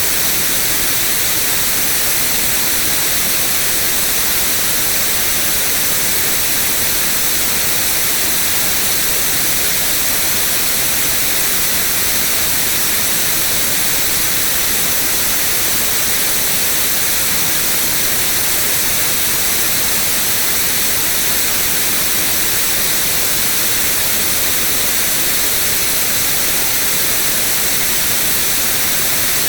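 Steady white noise: an even, unchanging hiss, brightest in the high range.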